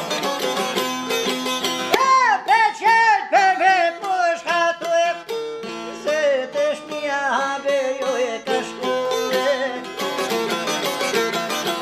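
A man sings a high, ornamented Albanian folk melody with wavering, bending notes from about two seconds in until about nine seconds. Two plucked folk lutes accompany him, a long-necked çifteli and a round-bodied mandolin-type lute. The strings play alone, fast and busy, before and after the singing.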